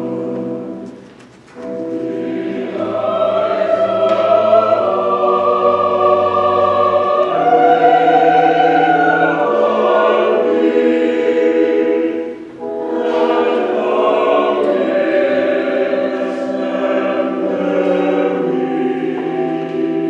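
Church choir singing a slow introit, with steady held low notes beneath the voices. The music breaks off briefly between phrases about a second in and again about twelve seconds in.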